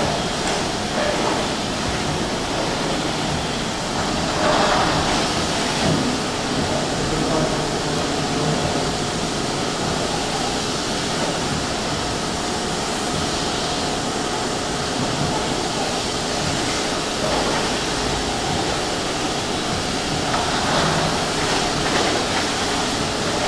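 Steady rushing noise of the sea and surf at the shore, with no distinct events.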